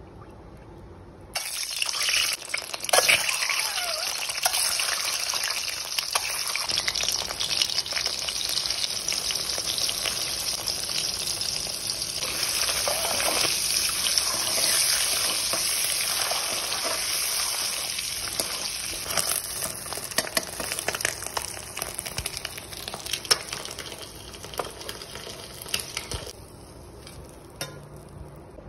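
Peeled boiled duck eggs frying in hot oil in a steel wok: a steady sizzle with constant crackling starts suddenly about a second in. A metal spatula scrapes and stirs against the pan, and the sizzle dies down near the end.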